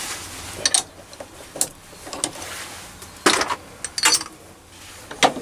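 Steel tool holders being lifted off and set down from a mini lathe's quick-change toolpost, with the lathe stopped. They make a string of sharp metal clinks and knocks at irregular intervals.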